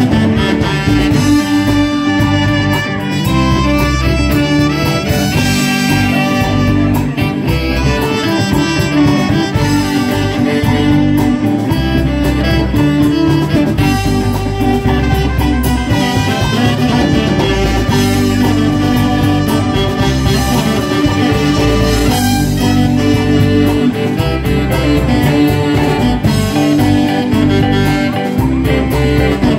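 Live band playing an instrumental passage, with electric guitars and acoustic guitar over a steady bass line, a trumpet and keyboard.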